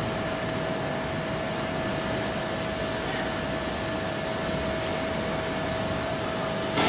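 Steady background hiss with a constant mid-pitched hum running through it, and a brief knock near the end.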